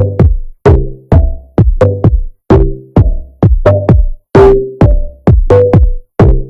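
Electronic background music with a loud drum-machine beat, about two hits a second over a low bass line.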